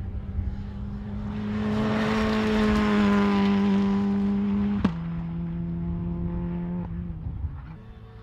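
Opel ADAM rally car passing at speed on a gravel stage, its engine held at high revs over a hiss of gravel and tyres that is loudest as it goes by. A sharp click about five seconds in, after which the engine note steps lower, then the sound falls away near the end.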